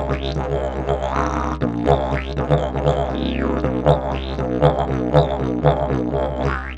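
Alien Plug travel didgeridoo played as a continuous low drone, with rhythmic accents about twice a second and overtones sweeping up and down as the player shapes the sound. It fades out right at the end.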